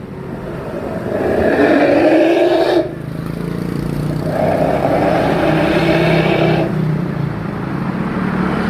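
Toyota Avanza engine revved twice through a newly fitted SUOS 'ngorok' oval aftermarket exhaust muffler, each time held for about two seconds and dropping back to idle, the first cut off sharply at about three seconds in.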